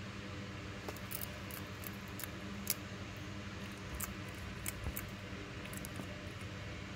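A bearded dragon crunching a superworm: scattered small crisp clicks, the sharpest nearly three seconds in, over a steady low background hum.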